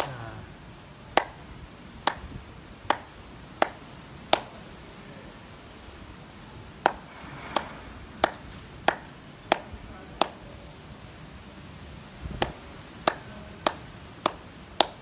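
Single hand claps, sixteen of them in three runs of five, six and five, a little more than one a second within each run, each a sharp crack.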